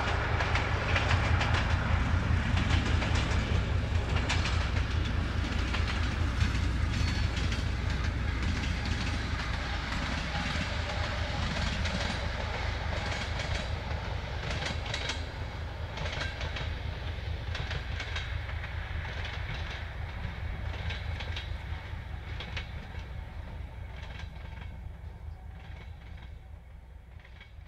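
A ČD class 749 'Bardotka' diesel locomotive hauling a passenger train away. It has a deep, regular engine throb, and the coaches' wheels click over rail joints. The whole sound fades steadily as the train recedes.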